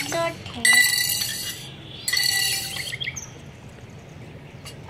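Birds calling: two strong buzzy calls, each about a second long and a second or so apart, with a few short chirps between them, then quieter.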